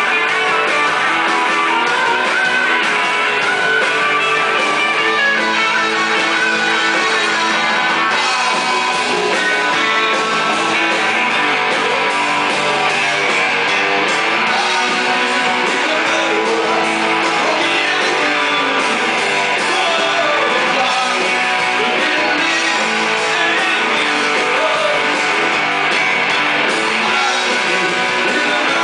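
Rock band playing live: two electric guitars, bass guitar and drum kit, loud and steady throughout.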